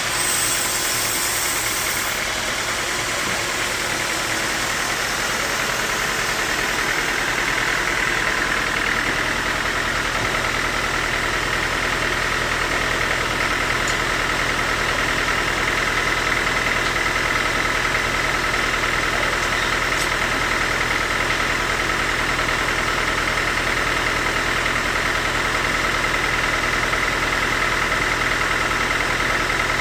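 Sawmill machinery running steadily: a constant low hum with a high whine that grows a little stronger about ten seconds in.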